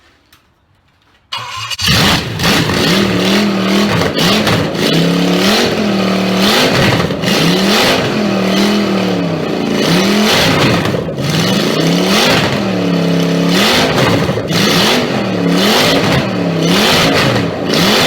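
Freshly rebuilt Triumph Stag 3.0-litre V8 on an engine test bed, starting about a second in and catching at once, then revved up and down over and over, the revs rising and falling every second or two.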